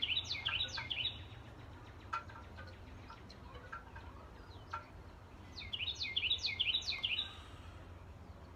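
A songbird singing two quick phrases of rapid, repeated high chirps, each lasting about a second and a half, one at the start and one about six seconds in, with a few single chirps in between.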